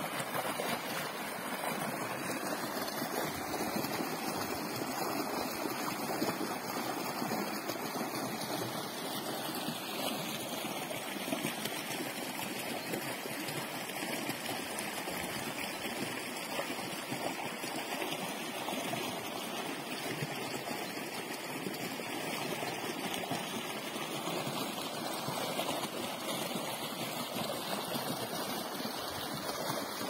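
Shallow creek rushing over rocks, a steady babble of flowing water.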